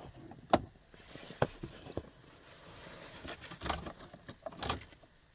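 A few sharp clicks, then two short rattling, jangling bursts, like keys and small parts being handled.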